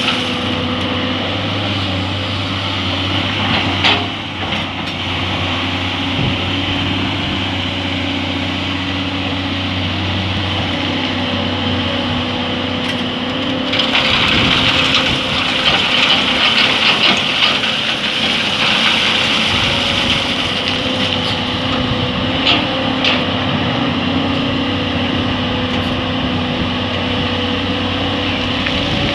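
Excavator's diesel engine running steadily under work, with a louder stretch about halfway through and a few sharp knocks.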